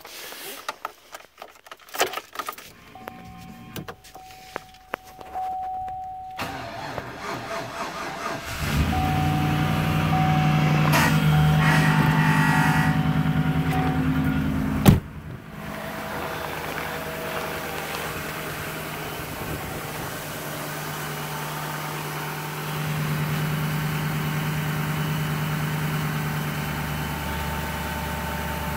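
Cold start at about −16 degrees of a GMC Sierra pickup's engine: a chime sounds, the starter cranks for about two seconds, then the engine catches and runs at a loud idle. About halfway through, a door bangs shut, and the engine idles on steadily and a little quieter. The owner suspects the truck's original battery is getting weak.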